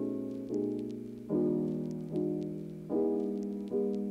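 Background music of piano chords, a new chord struck about every second and fading before the next.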